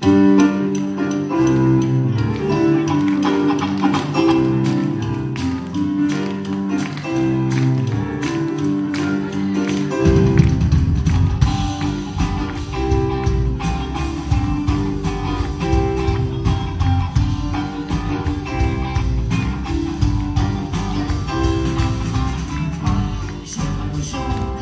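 Live rock band starting a song: a melodic intro of picked notes, then the full band comes in about ten seconds in with a much heavier low end.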